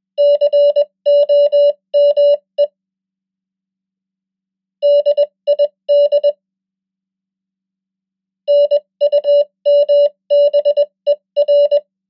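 Morse code sent at 20 words per minute as a single-pitch beep of short and long tones, spelling three words with a pause after each: COME, DID, NUMBER.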